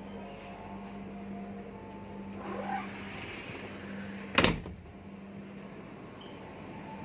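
Steady low hum inside a stopped passenger train's door vestibule, with a single sharp knock about four and a half seconds in, the loudest sound here.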